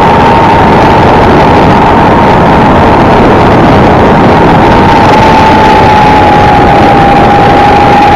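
Steady, loud wind and road noise from riding a small vehicle, with a thin steady whine throughout that dips slightly in pitch about five seconds in.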